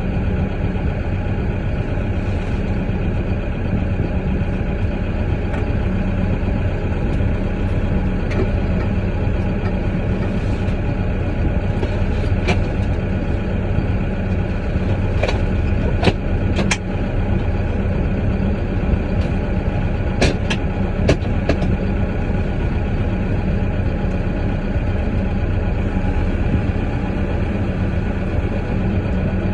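A heavy vehicle's diesel engine running steadily, heard from inside the cab, with a few sharp clicks and knocks scattered through the middle.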